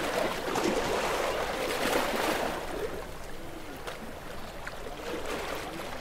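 Small ocean waves lapping and sloshing with bubbly gurgles and little splashes, swelling about two seconds in and then easing.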